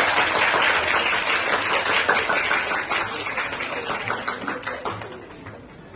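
A class of students applauding, many hands clapping together; the applause gradually dies away toward the end.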